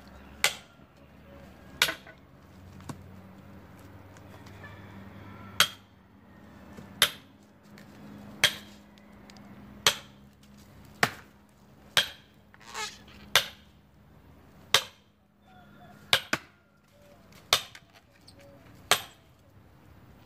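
Repeated heavy blows driving a splitting wedge into an almond log to split it: a sharp strike about every second to second and a half, around fifteen in all.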